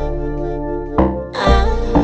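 Recorded song playing: held notes over a deep bass, with a sharp hit about a second in and the bass coming back strongly after it.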